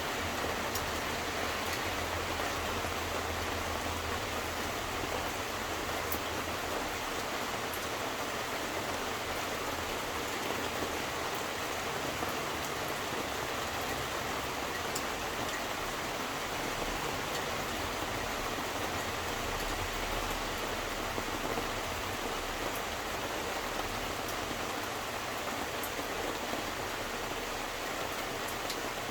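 Steady rain falling and pattering on surfaces, with occasional sharper drop ticks and a low, faint rumble underneath.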